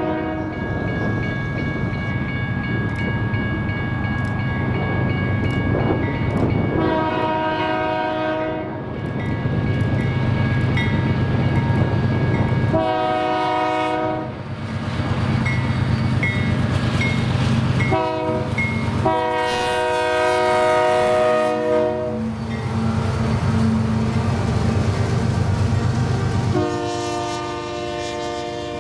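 Multi-chime air horn of a Union Pacific GE diesel locomotive sounding a series of long blasts and one short one, the grade-crossing signal, as the train approaches. The locomotives' diesel engines rumble louder as they pass about halfway through, and loaded covered hopper cars roll by near the end.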